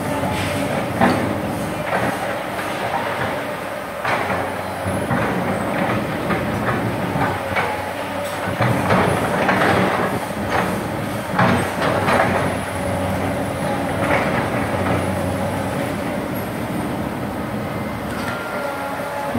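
Komatsu PC200 hydraulic excavator digging: its diesel engine runs steadily under a string of irregular metallic clanks as the bucket scoops soil and the boom lifts.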